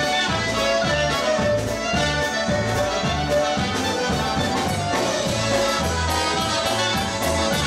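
Live polka band playing an instrumental break: clarinet, trumpet and accordion over a steady, bouncing bass line.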